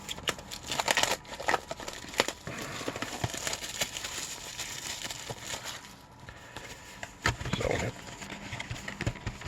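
Crinkling and rustling of packaging, with scattered clicks and taps, as a retail box of hockey cards is handled and opened; a fuller, louder rustle comes about three quarters of the way through.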